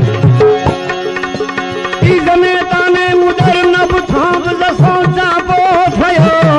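Indian devotional bhajan music between sung verses: tabla strokes under a melody instrument that slides between notes, with no singing.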